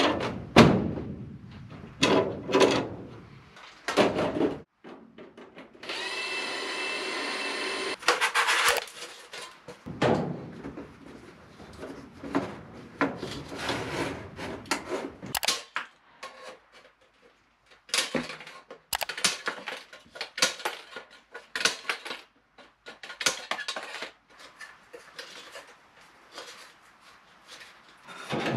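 Knocks, clanks and scraping of sheet-metal humidifier and duct parts being handled and fitted, with a power drill running steadily for about two seconds, about six seconds in.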